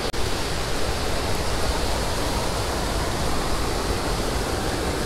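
Steady rushing of creek water pouring over a waterfall.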